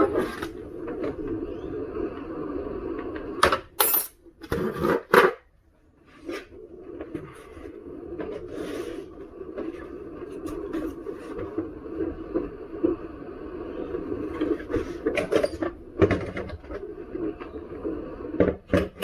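A few sharp knocks and clatter of electric unicycle shell parts being handled and fitted during reassembly, over a steady low hum. The knocks come in a cluster a few seconds in and again near the end.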